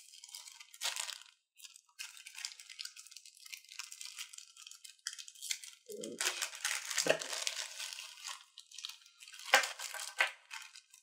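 Small clear plastic bag crinkling and rustling as hands open it and draw out a wired earpiece headset, with the loudest crinkling a little past halfway and once more near the end.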